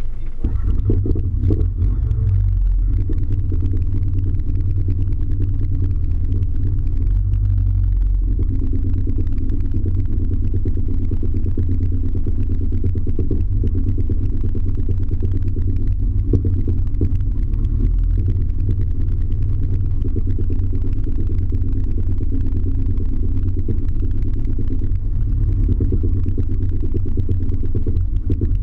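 Jet ski engine running steadily under way, a muffled low rumble with little change in pitch.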